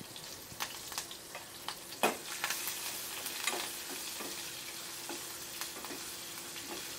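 Green chillies and curry leaves sizzling in hot oil in a small steel pan, stirred with a steel ladle. Scattered sharp clicks of the ladle against the pan sound over the steady sizzle, the loudest about two seconds in.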